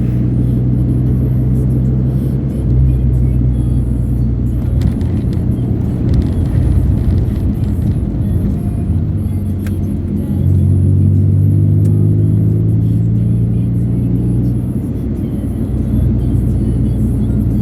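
Music playing on a car stereo, its low bass notes held and changing every few seconds, heard inside a moving car over steady road rumble.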